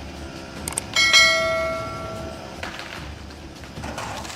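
A single sharp metallic strike about a second in, ringing like a bell with several clear tones that fade away over about a second and a half.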